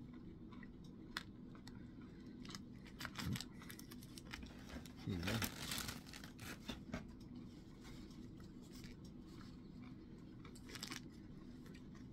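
Quiet crinkling and rustling of a Quaker Chewy granola bar's wrapper as it is handled, loudest for about a second around five seconds in, among faint scattered clicks.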